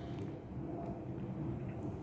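Steady low outdoor background rumble with a few faint ticks.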